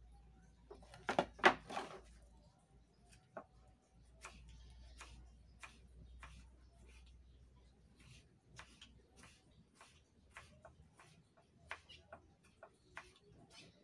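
Kitchen knife slicing on a wooden cutting board: a short sharp click each time the blade meets the board, roughly two a second, with a brief burst of louder clattering about a second in.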